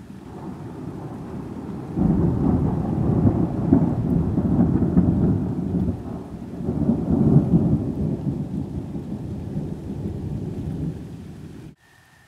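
Thunder rolling during a rainstorm: a deep rumble that jumps up sharply about two seconds in, swells twice, then eases off, with rain beneath it. It cuts off abruptly just before the end.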